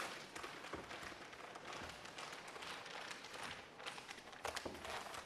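Faint rustling and crinkling of plastic shrink-wrap film being handled and tucked under a boat's perimeter band, with scattered small ticks.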